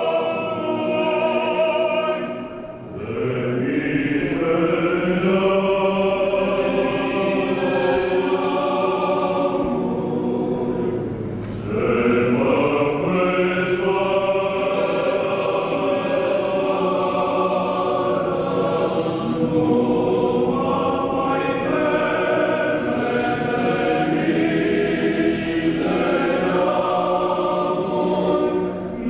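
Background music: a choir singing slow, sustained church chant, with short breaths between phrases about three and eleven seconds in.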